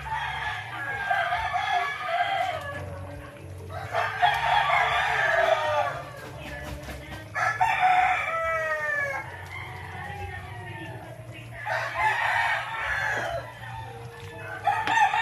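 Rooster crowing about four times, each crow a second or two long.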